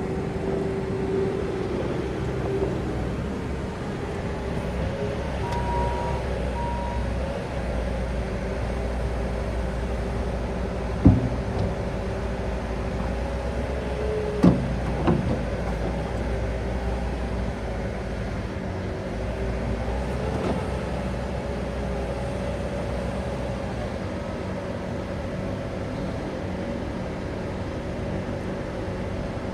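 Bobcat S770 skid steer's diesel engine running steadily while the machine is operated, its pitch shifting a little. There is a sharp clunk about eleven seconds in and two more around fifteen seconds in.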